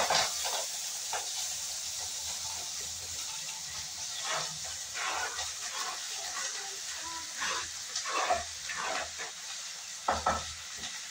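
Chopped vegetables sizzling steadily in hot oil in a kadhai, with scattered scrapes and knocks of a spoon against the plastic chopping board and the pan as the last pieces are scraped in and stirred.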